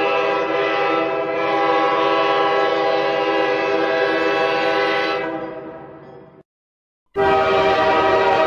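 A train horn held in one long steady blast of several notes at once, fading out about five to six seconds in. After a short silence, another train horn blast starts abruptly near the end.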